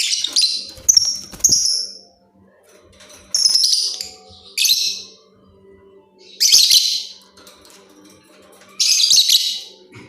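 Lovebird singing in loud, harsh bouts of rapid chirping: about five bouts, each a second or less, with short pauses between them.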